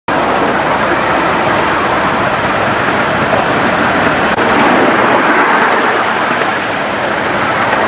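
7¼-inch gauge miniature railway train running along its track: a steady, loud rumble of the carriage wheels on the rails.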